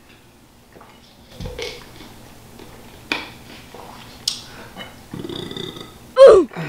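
Quiet eating sounds, scattered mouth clicks and smacks of chewing, then near the end a loud burp, its pitch dropping sharply.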